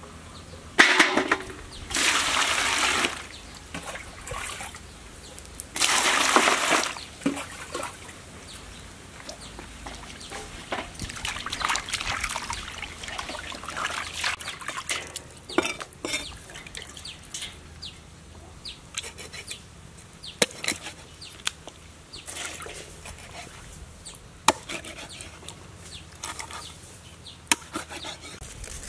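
Water poured into a basin in two loud runs near the start, then hands splashing and rubbing a snakehead fish in the water. In the second half, a cleaver chops the fish into steaks on a chopping board, with sharp knocks a second or two apart.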